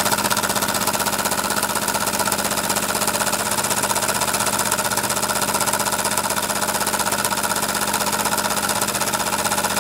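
Weeden 500 vertical model steam engine running under steam, giving a rapid, even beat over a steady hum.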